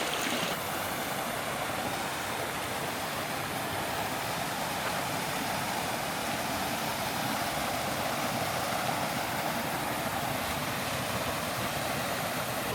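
Steady rush of flowing creek water and a waterfall.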